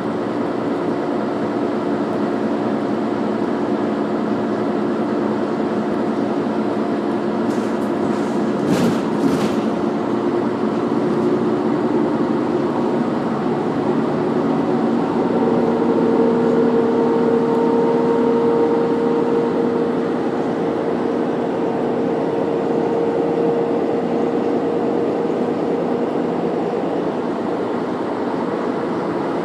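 Interior of a moving city bus: the engine drones and the tyres roll steadily on the road, with several held humming tones. A few sharp clicks or rattles come about eight to nine seconds in, and a stronger steady hum joins about halfway through and fades near the end.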